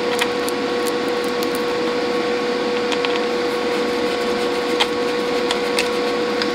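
Steady machine hum with a constant tone, over which a hand screwdriver gives a few faint clicks as it drives a screw into the side of a small radio's case.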